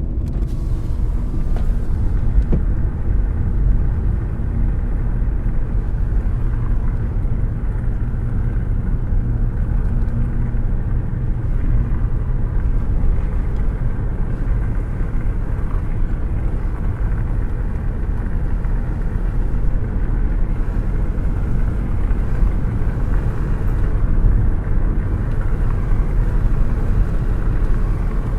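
Car cruising at a steady speed, heard from a hand held out of the open window: a steady low rumble that keeps an even pace throughout.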